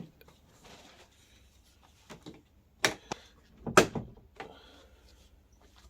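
Plastic side mirrors of a kids' ride-on toy truck snapping into the body, with two sharp plastic clicks about a second apart near the middle and a few lighter knocks of handling around them.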